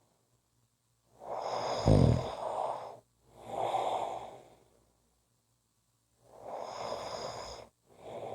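Person snoring through two slow breath cycles: a snore starting about a second in, with a brief loud low rattle, followed by a breathy swell, then a second snore-and-breath pair near the end.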